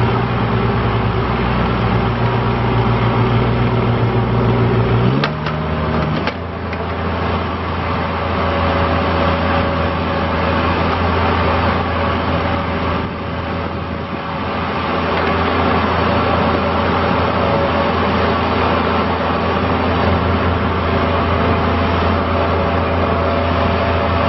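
Toro Dingo compact utility loader's engine running steadily. About five seconds in its pitch drops, with a couple of clicks, and it runs on at the lower steady note.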